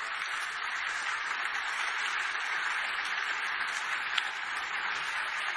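Large audience applauding steadily, a dense even clatter of many hands, with one sharp click about four seconds in.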